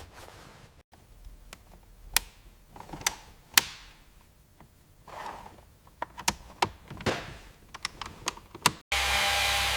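Hand work on car parts in a workshop: scattered sharp clicks and light metallic taps, a few with a short ringing tail. About nine seconds in, a loud steady power-tool whir cuts in abruptly.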